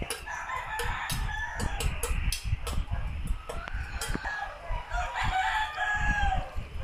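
Chickens clucking in the background, with a rooster giving one long crow about five seconds in. A run of sharp clicks sounds through the first few seconds.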